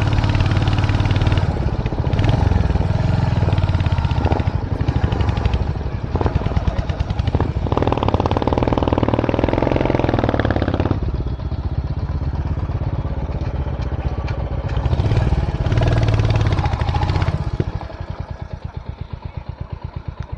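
Royal Enfield 350's single-cylinder engine running as the motorcycle is ridden. Near the end it drops to quieter, slower, evenly spaced thumps as the rider eases off.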